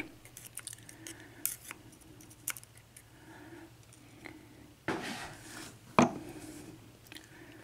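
Small metal clicks and taps as the pins and parts of a disassembled Sargent 6-pin lock cylinder are handled. There is a short scrape about five seconds in and a sharper click just after it.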